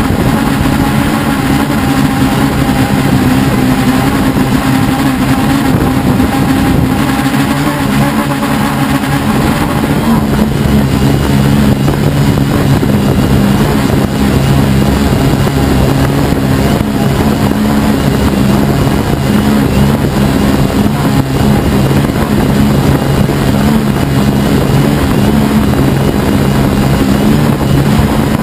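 Helimax Form 500 quadcopter's electric motors and propellers running steadily in flight, heard from a camera on the airframe: a loud, even hum of several tones over a rushing noise, which shifts in pitch about ten seconds in.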